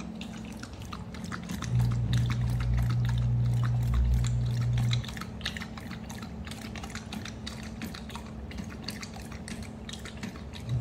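Bernese mountain dog lapping water from a pet drinking fountain, a run of quick wet laps and drips. A steady low hum comes in about two seconds in and stops about five seconds in, louder than the laps.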